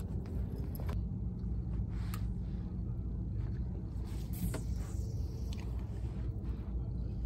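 Steady low rumble throughout. Over it, a few light clicks of a spinning rod and reel being handled, and a brief faint swish about four and a half seconds in as the rod is cast.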